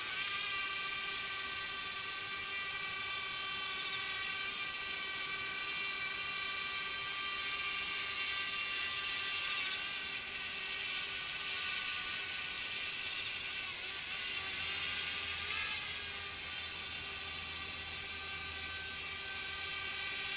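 Small camera drone's propellers whining steadily in flight, the pitch shifting slightly now and then.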